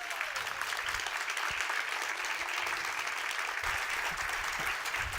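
Large audience clapping steadily in a standing ovation.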